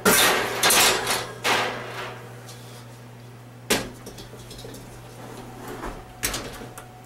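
Oven door and rack clattering and scraping for about two seconds as a hot carbon steel wok is taken out of the oven, then sharp metal knocks as the wok is set down on the stovetop, once near four seconds in and again around six.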